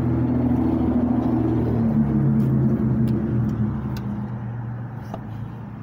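A motor vehicle's engine running with a steady low hum that fades gradually over the last couple of seconds. A few light clicks come from a hand working the car's fuel filler door.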